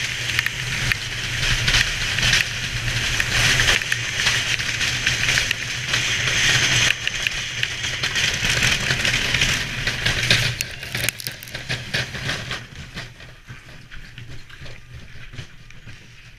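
Bobsled's steel runners running at speed down the ice track: a loud hissing scrape over a low rumble. From about ten seconds in it dies away as the sled slows on the outrun toward the finish.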